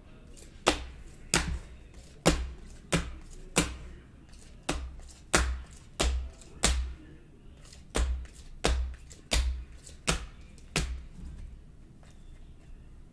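Rigid plastic card holders being set down or knocked on a tabletop one after another. Each gives a sharp tap, roughly every two-thirds of a second, and the taps stop about eleven seconds in.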